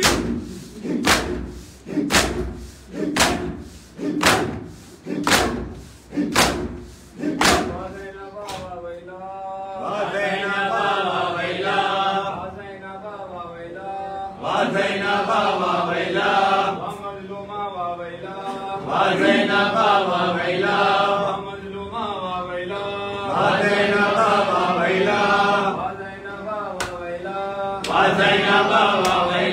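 A crowd of men beating their chests with both open hands in unison, a steady rhythm of slaps about two a second, which stops about seven seconds in. Then the men chant a noha (mourning lament) together in long, rising-and-falling phrases.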